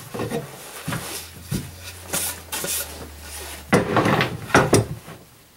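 Particleboard panels being handled and fitted together on a tabletop: a series of wooden knocks and clacks as board meets board and table, with a short scraping slide a little past two seconds in and a cluster of knocks near four seconds.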